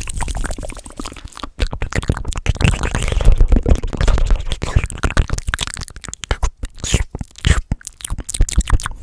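Fast, aggressive ASMR mouth sounds close to the microphone: a dense stream of rapid wet clicks, pops and smacks with breathy puffs, loudest in the middle.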